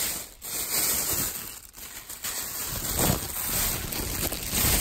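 Thin plastic bag rustling and crinkling loudly and unevenly as hands dig through it right at the microphone.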